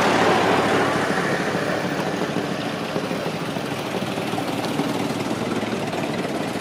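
Early Ford Model T cars driving past one after another, their engines running. The sound is loudest at the start and eases off a little over the first couple of seconds, then stays steady.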